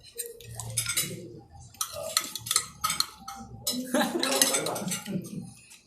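Cutlery clinking and scraping against a plate in a quick, irregular series of sharp clicks, loudest around the middle.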